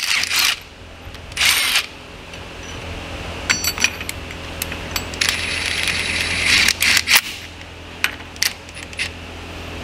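Metal clinks, taps and scrapes of sockets, a ratchet and a cordless impact wrench being handled and fitted onto the axle hub of a portal gear box. There are scattered sharp clinks, and a longer scraping rush from about five seconds in.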